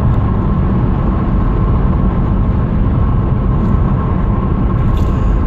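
Steady road noise inside a car cruising at motorway speed: a constant low rumble of tyres and engine heard through the cabin.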